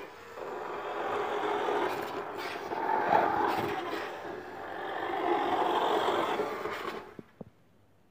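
Remote-control toy car's small electric motor running and its plastic wheels rolling over a tile floor. It stops about seven seconds in, followed by a couple of faint clicks.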